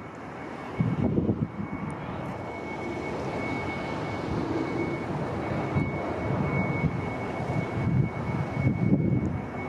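Airplane passing overhead: a steady rushing engine noise that slowly grows louder, with a thin high whine held throughout.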